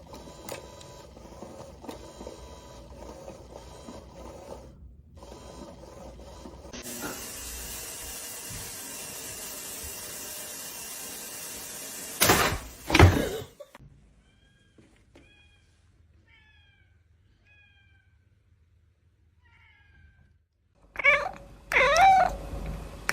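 Domestic cat meowing loudly, drawn-out gliding calls twice near the end. Earlier come a steady hiss and two loud short noises about twelve seconds in.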